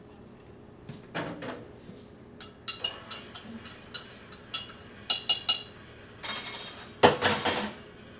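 Dishes and cutlery clinking and knocking: a string of sharp clinks, ending in two louder rattles, the first with a high ringing.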